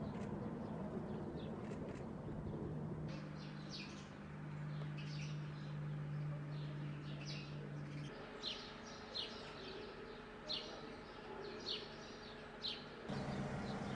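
Small birds chirping in short, sharp calls, several in quick succession in the second half, over a low steady hum of quiet open-air ambience. The background hum changes abruptly a few times.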